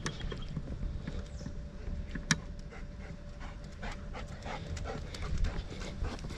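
German shepherd panting, with footsteps scuffing and clicking over dry rocky ground and one sharp click about two seconds in.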